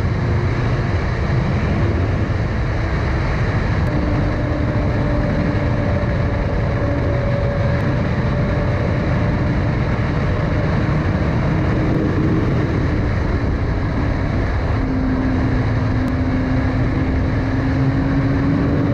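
Steady wind rush over a helmet-mounted microphone with a Suzuki sport bike's engine running at an even highway cruise underneath; the engine note drifts only a little and rises gently over the last few seconds.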